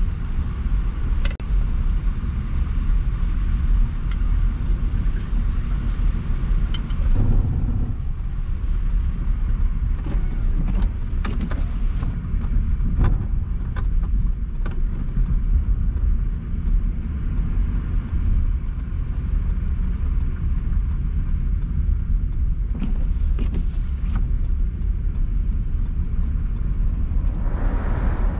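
Car being driven: a steady, loud low road-and-engine rumble with scattered light clicks and knocks, and a brief rise in hiss near the end.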